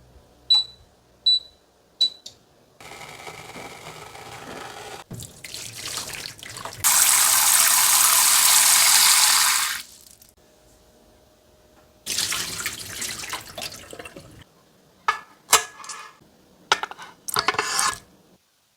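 Kitchen tap water running into a sink. It builds up and runs hard for about three seconds in the middle, then runs again more unevenly. A few short ringing clinks come at the start and several sharp knocks near the end.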